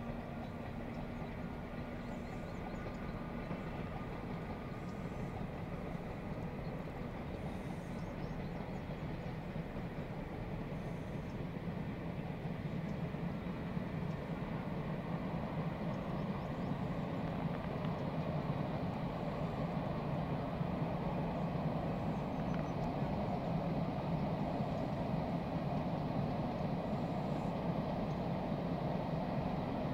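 A train running along the railway line, heard from the hilltop as a steady noise that grows gradually louder.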